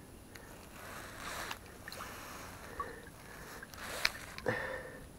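Soft water splashes and handling noises as a chub is released back into the river, with a sharp click about four seconds in.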